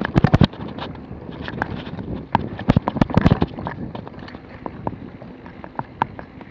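Mountain bike clattering down a rough dirt trail: a steady run of knocks and rattles from the bike as its wheels hit stones and ruts, with two heavier bursts of clatter at the start and about three seconds in.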